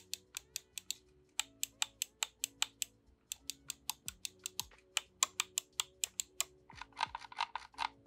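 Lofree Touch wireless mouse's PBT-keycapped buttons being clicked repeatedly, sharp crisp clicks in runs of several a second, with a faster burst of clicks near the end.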